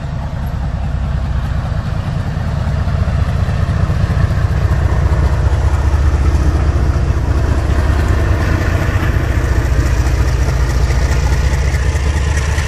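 WDG4G diesel-electric freight locomotive, with a 12-cylinder GE Evolution engine, passing close by. Its engine gives a deep, steady drone that grows louder over the first few seconds and stays loud as the locomotive goes by.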